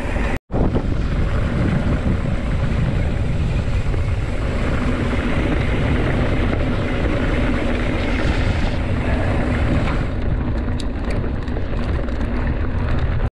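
Wind buffeting the microphone of a camera on a mountain bike riding a dirt road: a loud, steady low rumble. It cuts out for a moment just after the start, and the hiss above it thins out near the end.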